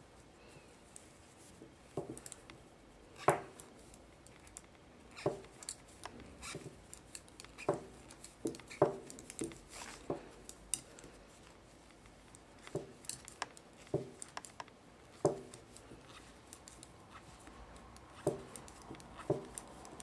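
Knitting needles clicking together as stitches are knitted, irregular light clicks about once a second, with a pause of a few seconds after the middle.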